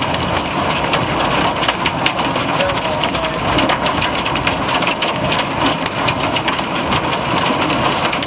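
Hailstones falling hard, a dense, continuous clatter of countless small impacts on a vehicle and on the hail-covered ground.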